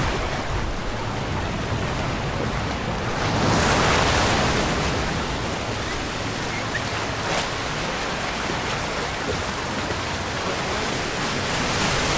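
Ocean surf washing onto the beach, a steady rush that swells briefly about four seconds in.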